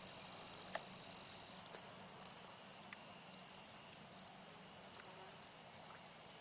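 Insects singing in a chorus: a steady high-pitched trill and a short chirp repeated at an even pace. The loudest trill drops away about one and a half seconds in.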